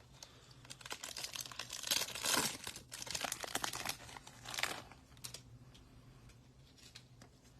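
Foil trading card pack wrapper crinkling and tearing as the pack is ripped open, with the crackling thinning out after about five seconds.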